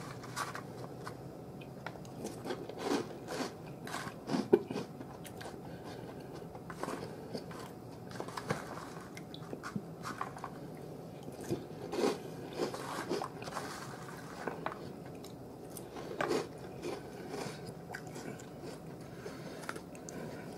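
A person chewing a mouthful of cocoa-and-cookie cereal in milk, with soft, irregular crunches.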